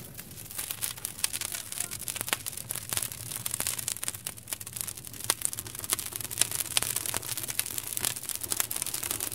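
Wood fire crackling, with many sharp irregular pops and snaps over a steady hiss and a low rumble.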